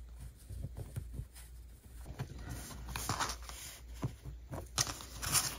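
Faint, scattered small clicks and scratchy rubbing of fingers working an M2 standoff through a 3D-printed plastic holder.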